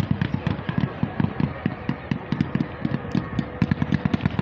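Fireworks firing a rapid volley of shots, about seven or eight sharp bangs a second, each with a low thump, as fans of comets go up.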